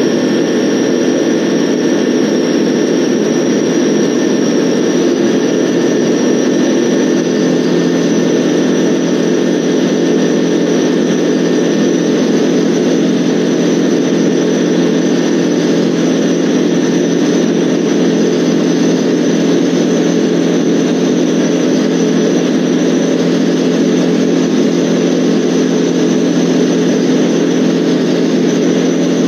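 Van's RV-12's Rotax 912 flat-four engine and propeller at full power through the takeoff roll, lift-off and climb, heard from inside the cockpit as a loud, steady drone. A thin high whine above it rises slightly in the first second.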